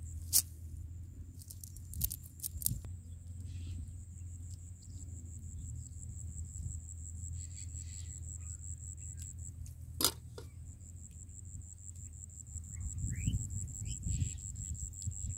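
Insects keep up a steady, high-pitched drone, with a few sharp clicks of shells knocking together as they are handled, the loudest just after the start and about two-thirds of the way in.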